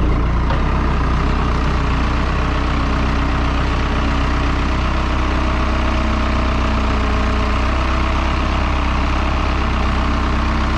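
Skid steer engine running steadily, a continuous deep engine drone with no change in speed.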